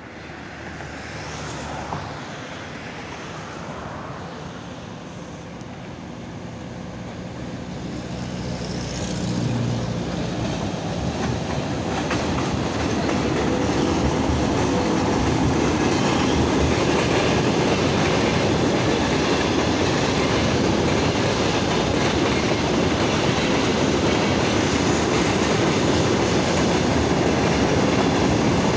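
VL80T twin-section electric locomotive hauling a freight train, growing louder as it approaches and passes close by about halfway through. This is followed by a steady loud rumble of freight wagons, tank cars among them, rolling on the rails.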